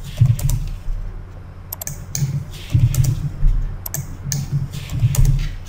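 Scattered keystrokes on a computer keyboard, numbers being typed into form fields, over a low hum.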